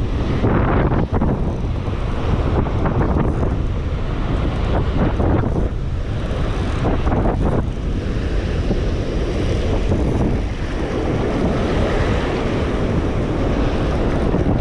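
Strong wind buffeting the microphone over the wash of breaking surf, in steady gusts.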